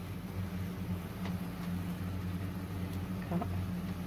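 A steady low hum, with a couple of soft knocks from plastic and silicone spatulas working a tortilla in a non-stick frying pan, about a second in and again near the end.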